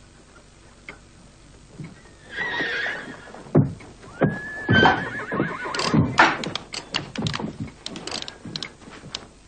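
Horses neighing twice, first about two seconds in and again near the middle, then the quick, irregular clatter of several horses' hooves as they move off.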